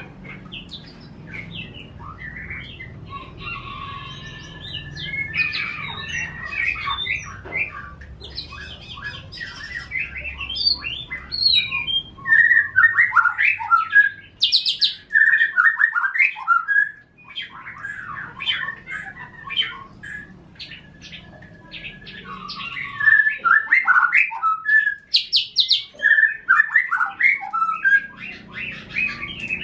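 Caged songbirds singing: a run of chirps and whistled phrases, loudest in two long stretches of rapid, dense song, one about halfway through and one near the end.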